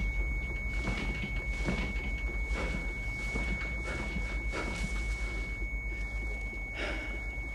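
Patient monitor sounding its continuous single-pitch flatline tone, the sign that the heart has no pulse and is in asystole. Irregular breathy sobs sound over it.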